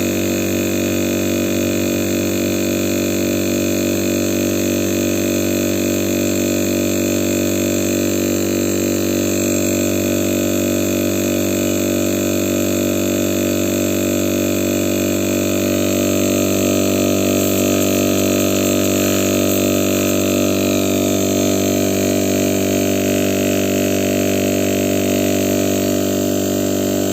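Refrigerator compressor running with a loud, steady electric hum and buzz, switched on suddenly just before and holding an even pitch throughout.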